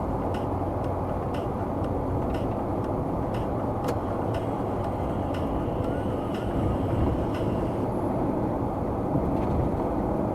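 Steady road and tyre noise of a car driving, with a regular tick about twice a second.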